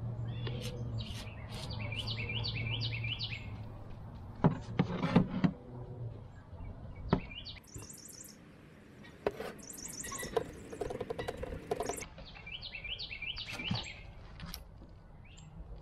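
A songbird singing a phrase of quick down-slurred chirps twice, with higher, thinner chirps in between. Over it come sharp clicks and knocks from a mini battery chainsaw and a bar-oil bottle being handled, the loudest a cluster of clatter about five seconds in.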